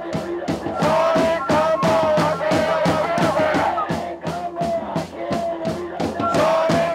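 Protest chant shouted through megaphones, with hand-held drums beating a steady rhythm of about four beats a second and protesters chanting along.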